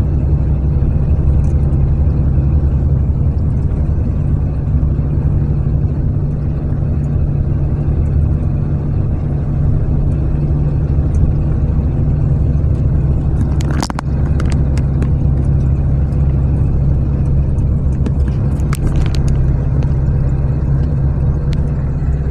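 Steady low rumble of a moving vehicle, road and engine noise. A few brief clicks come through, one about two-thirds of the way in and a couple more near the end.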